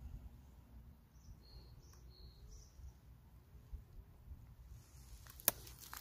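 Quiet outdoor background with a few short, high bird chirps about one and a half to two and a half seconds in, over a faint low rumble. A single sharp click comes near the end.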